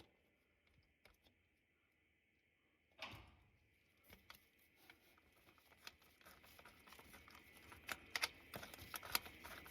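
Near silence, then a single knock about three seconds in, followed by faint clicks, taps and scrapes that grow busier toward the end: hands working a mechanical fuel pump loose from a 440 V8 engine block.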